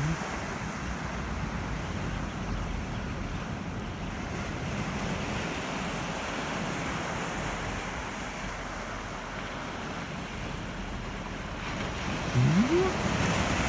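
Small waves breaking and washing up a sandy beach, with wind buffeting the microphone. The surf gets louder near the end, where a short rising sound is heard.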